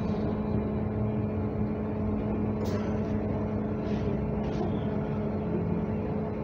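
Cabin noise of a BKM trolleybus under way: a steady rumble with a constant electric hum. Three short clicks or rattles come about halfway through.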